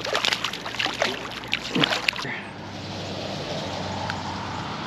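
A small white perch thrashing on the line at the water's surface, a quick run of sharp splashes for about two seconds, then a steady soft hiss.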